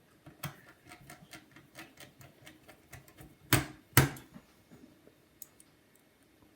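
Light clicking and tapping of hands and a precision screwdriver working on the parts of an opened MacBook, a few small clicks a second, then two loud knocks about half a second apart.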